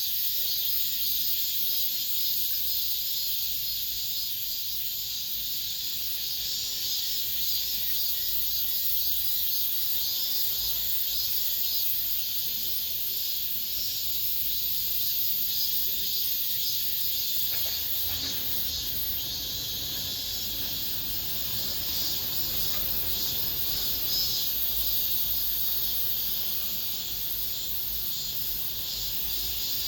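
Cicadas singing in a steady, dense high-pitched buzz.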